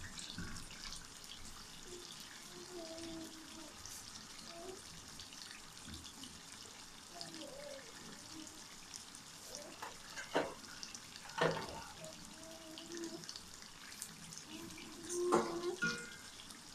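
Beef trotters in thick masala sizzling in a wok on a gas flame, a steady hiss, with a few sharp clinks about ten, eleven and fifteen seconds in.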